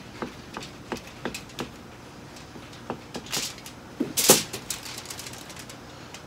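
A knife sawing through a burger on aluminium foil, each stroke a sharp tap, about three a second, then foil crinkling and rustling as the burger is gathered up in it, loudest about four seconds in.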